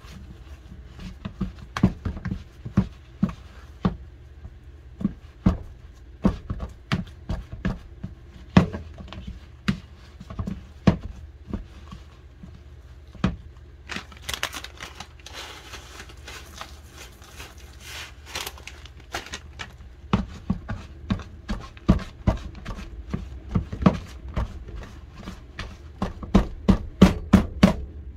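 A spatula mashing and stirring soft boiled-pumpkin and flour dough in a plastic bowl, knocking against the bowl in irregular sharp taps. There is a stretch of scraping about halfway through and a quicker run of knocks near the end.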